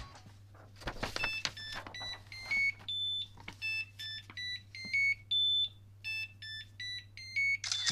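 FlashForge Adventurer 3 3D printer's buzzer beeping a repeating tune of quick high notes at several pitches, the alert that its firmware upgrade has completed. A faint steady low hum runs underneath.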